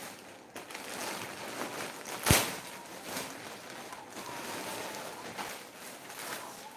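Clear plastic garment packaging rustling and crinkling as a kurti is handled and drawn out of its bag, with one sharp knock a little over two seconds in.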